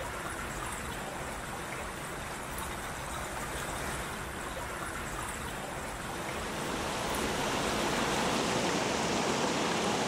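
Creek water rushing over rocks: a steady wash of running water, growing a little louder about seven seconds in.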